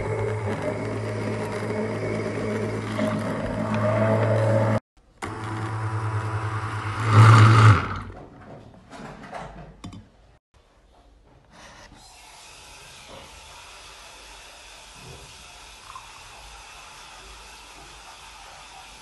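Handheld immersion blender running in a milky drink in a glass pitcher: a steady motor hum that cuts out for a moment about five seconds in, restarts, gets louder briefly just before eight seconds and then stops. A few faint knocks and a low steady hiss follow.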